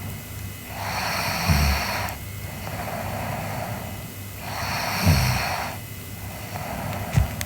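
A sleeping girl snoring: two loud, noisy breaths about three and a half seconds apart, each with a short low snort, and quieter breaths between them. A brief low thump near the end.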